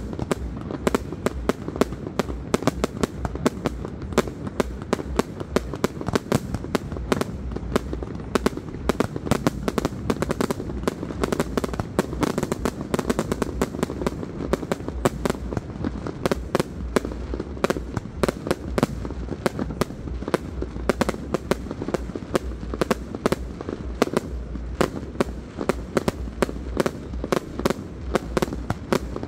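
Aerial fireworks going off in a dense, unbroken string of bangs and pops, several every second.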